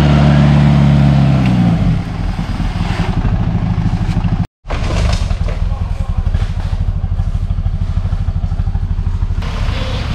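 Off-road 4x4 engines working through mud. Over the first couple of seconds one is revved hard, then its revs drop, and after a brief cut to silence about four and a half seconds in, an engine runs on with a steady rough beat.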